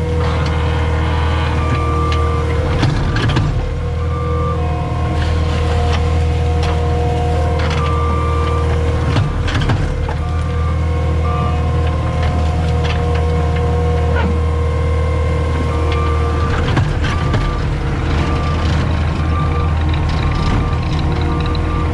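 CAT 259D skid steer's diesel engine running steadily under load, with clanks now and then about 3, 9, 14 and 17 seconds in, and intermittent beeping that comes more regularly near the end.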